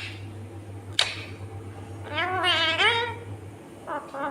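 Pet rose-ringed parakeet calling: a sharp short squawk about a second in, then a longer wavering, quavering call about two seconds in, over a steady low hum.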